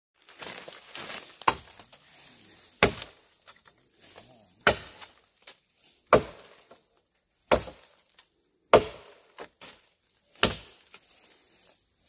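Machete chopping wood: seven sharp single strikes, one every second and a half or so, over a steady high insect drone.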